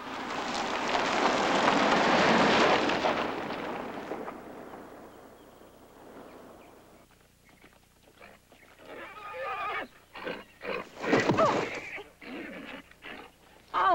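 A car passes on a dirt road, its engine and tyre noise swelling over the first couple of seconds and fading away. A few seconds later come horse hooves and knocks, then a loud horse whinny about eleven seconds in as the horse throws its rider.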